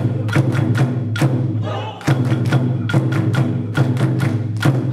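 Japanese taiko drumming: deep, ringing drum strikes in an uneven rhythm, with quick runs of sharp hits and a short break about two seconds in.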